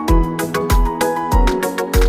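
Background music with a steady beat: a low drum about every 0.6 seconds under sustained melodic notes.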